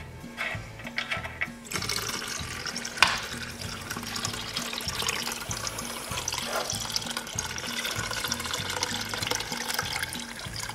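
Dirty kerosene rinse pouring in a steady stream from the Suffolk Super Colt engine's crankcase drain into a plastic bucket, starting about two seconds in: the engine block being flushed out. A single sharp click about three seconds in, over background music.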